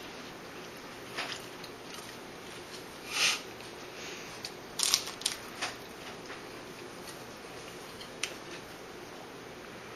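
A person speed-eating double cheeseburgers: a few short chewing and breathing sounds over steady room noise, the longest about three seconds in and a small cluster around five seconds.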